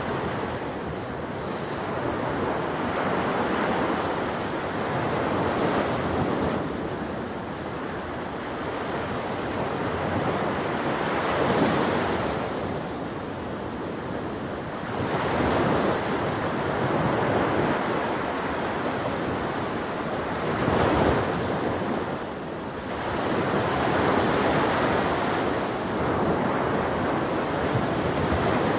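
Ocean surf breaking on a beach: a continuous wash of water noise that swells and falls back every few seconds as waves come in.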